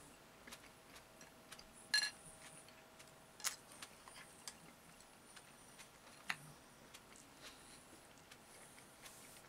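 Faint, scattered clicks of eating utensils against a bowl during a meal, a few irregular taps, the loudest about two seconds in and another about three and a half seconds in.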